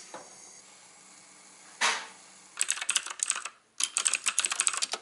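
A short rush of noise about two seconds in, then fast typing on a computer keyboard in two quick runs of keystrokes.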